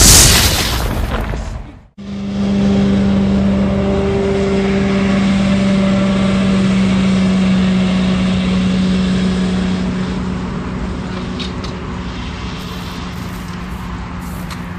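An explosion blast at the very start, dying away over about two seconds and cutting off, then a hovercraft's engine and fan running at a steady drone that slowly gets quieter.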